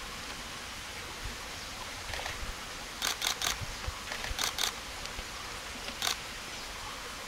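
A female verditer flycatcher bathing in shallow water: short, crisp bursts of splashing and wing-fluttering. There is a quick cluster of three about three seconds in, two more a second later, and a single one near the end, over a steady background hiss.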